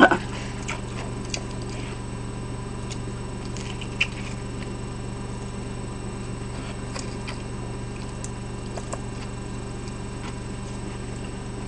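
Soft, faint chewing and small mouth clicks of someone eating a slice of pizza close to the microphone, over a steady low electrical hum, with one slightly louder tap about four seconds in.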